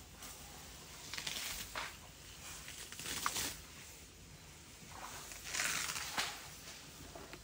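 African bush elephant tearing up long grass with its trunk and chewing it at close range. The sound comes in a few separate bursts of rustling and ripping about two seconds apart.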